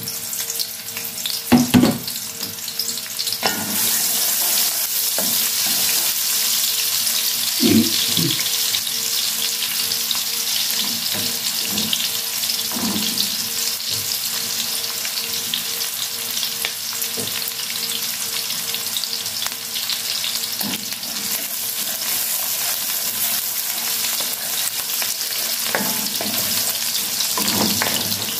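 Chopped onions sizzling in hot oil in an aluminium pot, a steady hiss that grows louder a few seconds in. A few short knocks and scrapes come from a spatula stirring against the pot.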